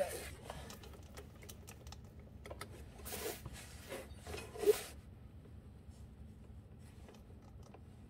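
Light handling noises: a few soft clicks, then two brief rustles, as gloved hands and clothing move around the motorcycle's rear wheel; quiet in the last few seconds.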